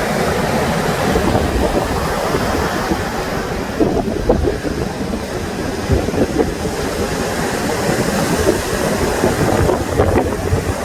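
Sea waves washing on the shore, with wind buffeting the microphone in irregular gusts.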